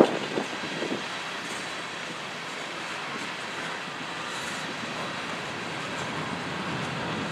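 Empty covered grain hopper cars of a Norfolk Southern freight train rolling past, a steady rolling noise of steel wheels on the rails.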